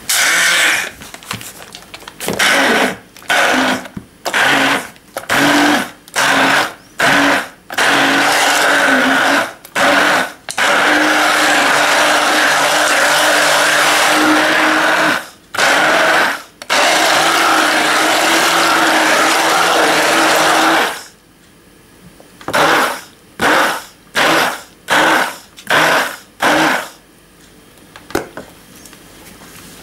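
Immersion (stick) blender motor run in short on-off pulses, then held on for about ten seconds, then pulsed again, puréeing frozen lingonberries and banana into fermented baked milk and cottage cheese in a plastic jug. It stops a few seconds before the end.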